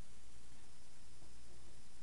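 Steady background hiss with a low hum and no distinct event: room tone.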